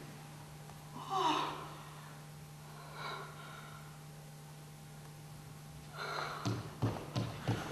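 A performer's wordless vocal sounds: a gasp with a sliding pitch about a second in, a shorter one about three seconds in, then breathy vocalising with a few light taps near the end, over a steady low hum.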